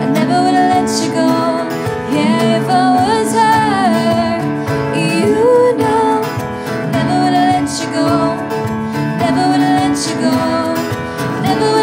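Live acoustic pop band playing: acoustic guitar, keyboard and a small drum kit keep a steady groove while a woman sings the melody.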